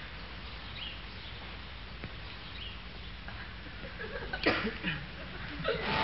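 Steady low hum and hiss of an old film soundtrack, with two short pitched, gliding sounds about four and a half seconds in. Music begins near the end.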